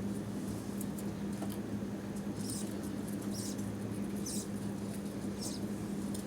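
Budgerigars giving short, high squeaky chirps, about one a second, over a steady low electrical hum.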